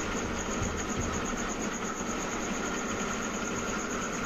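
Belt-driven two-cylinder reciprocating air compressor and its electric motor running steadily. It now runs freely because the tank air has been drained, which points to a faulty non-return valve letting tank air back into the head and jamming it when stopped.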